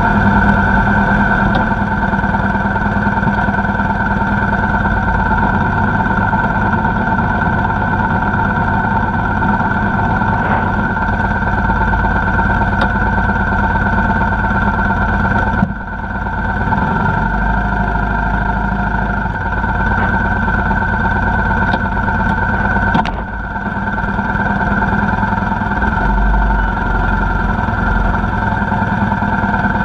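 Motorcycle engine running at a steady speed, heard close from the rider's own bike, with brief deep rumbles about halfway through and again near the end.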